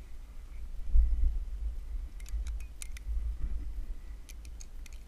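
Quickdraw carabiners clicking and clinking as the climbing rope is clipped into a quickdraw on a bolt: a cluster of sharp clicks about two to three seconds in and a few more near the end. Under them is a low rumble, loudest about a second in.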